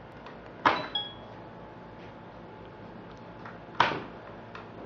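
Two hard strikes of a cloth-wrapped fist on a wooden board, about three seconds apart. A short ringing clink follows the first.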